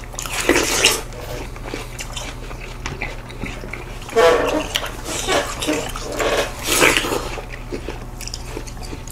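Juicy, wet bites, slurps and chewing of seedless watermelon slices, in a string of short irregular bursts.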